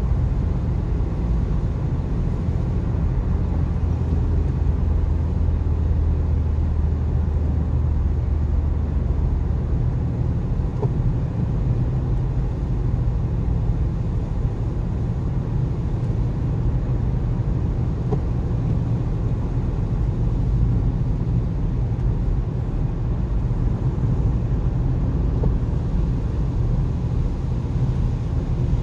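Car cabin noise at motorway speed: a steady low rumble of engine and tyres on the road.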